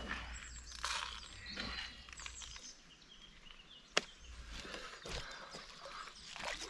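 Outdoor lakeside ambience with birds chirping, broken by a single sharp click about four seconds in.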